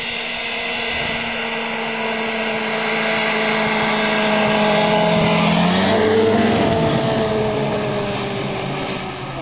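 1995 Polaris Indy 500 snowmobile's two-stroke engine running at speed as it approaches and passes by. It gets louder, its pitch drops about six seconds in as it goes past, and then it fades as it moves away.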